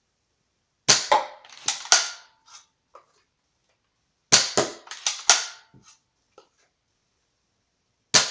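Spring-powered Nerf foam-dart pistol firing three times, about three and a half seconds apart. Each shot is a sharp snap followed by a quick scatter of knocks and clatter as the dart strikes and knocks over empty plastic bottles.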